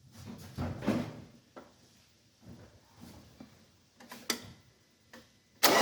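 A few scattered clicks and knocks, then near the end the Mitsubishi L200 Savana's engine is cranked and starts, with loud, quick, even pulses.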